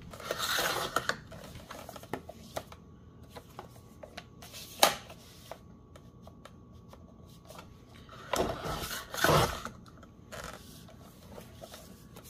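Paper rustling as a paper envelope is positioned on a sliding-blade rail paper trimmer, with a sharp click about five seconds in. Later, a scraping noise of about a second as the blade slides along the rail and cuts off the envelope's excess edge.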